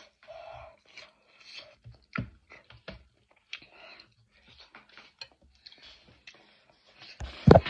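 Close-up mouth sounds of someone eating pasta: chewing, slurping and lip smacks in short irregular bursts, with a few sharp clicks. A loud thump near the end.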